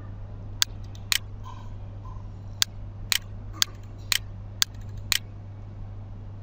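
Computer mouse button clicking about eight times, one sharp click roughly every half second, over a steady low hum.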